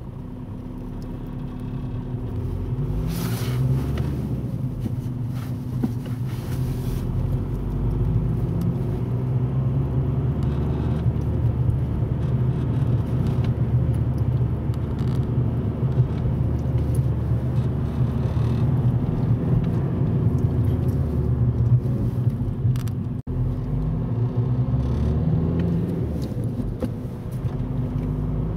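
Audi A3 8P's 1.9 TDI (BKC) four-cylinder diesel running under load as the car drives, building up over the first several seconds, with one brief break about 23 seconds in. A metallic rattle is meant to be heard around 2000 rpm whatever the road speed; its cause is unknown to the owner.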